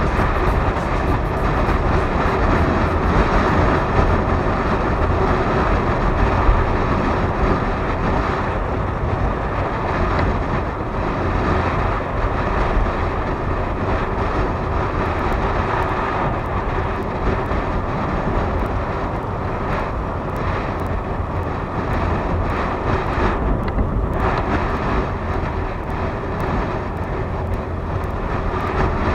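Wind rushing over an action camera's microphone on a moving motorcycle, a steady low rumble, with the motorcycle's engine running underneath.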